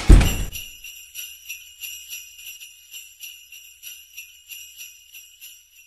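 A deep thump right at the start, then jingle bells shaken in a steady rhythm, about three shakes a second, slowly fading away.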